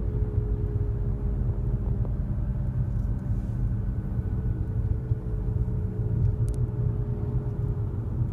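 2008 Nissan Altima on the move: a steady airplane-like droning hum over low road rumble, a drone that the owner says rises with acceleration and which he believes is a CVT transmission problem.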